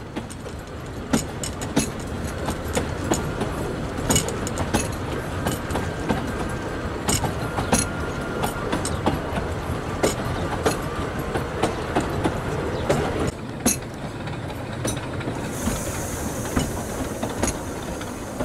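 Narrow-gauge Talyllyn Railway carriage running along the track, heard through an open window: a steady rumble with frequent clicks of the wheels over the rail joints.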